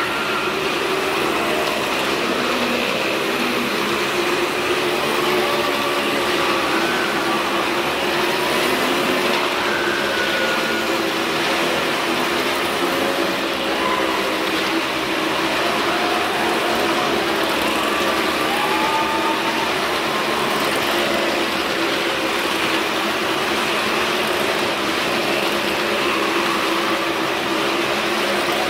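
Several motorcycle engines running hard as the riders circle the vertical wooden wall of a well-of-death drum. The drone is loud and steady, with small rises and falls in pitch.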